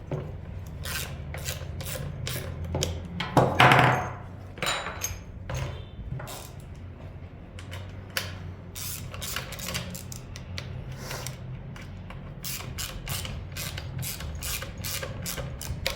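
Hand tool tightening the bolts that fasten a brush cutter's engine to its shaft: a string of short metal clicks and rubbing, with a louder scrape about three and a half seconds in and quicker runs of clicks near the end.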